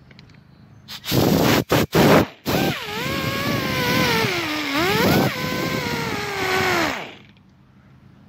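Air-powered rotary tool with a Roloc abrasive disc, used to dress ignition points. It starts with a short noisy rush broken by two quick cuts, then runs as a steady whine. The pitch dips and recovers midway, and the tool winds down and stops about a second before the end.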